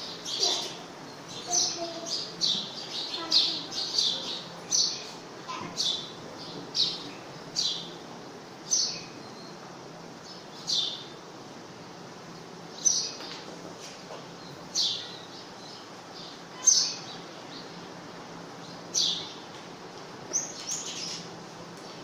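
A small bird chirping repeatedly: short, high, sharp chirps, each dropping in pitch, about one every one to two seconds.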